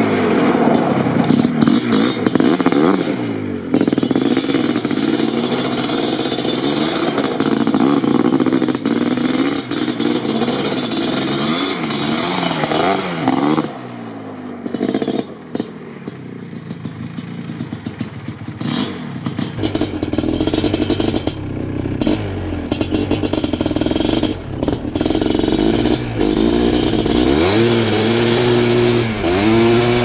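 Suzuki LT500R's 500cc single-cylinder two-stroke engine with an FMF Fatty expansion-chamber pipe, revving hard and falling back again and again as the quad is ridden through the gears. Heard from the roadside at first, with a quieter stretch as the quad moves off, then close and loud from on board the quad from about twenty seconds in.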